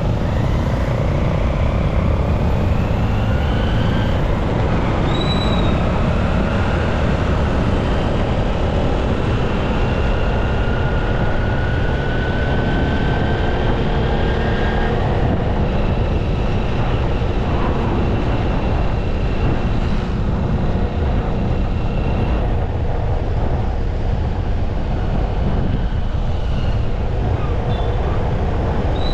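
Steady traffic and road noise heard from a moving bike, with a heavy rumble of wind on the microphone and a few faint whines that rise and fall in pitch.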